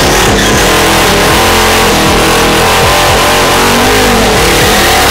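Turbocharged Ford Mustang engines revving hard on the start line, the pitch swinging up and down repeatedly over a loud, continuous roar.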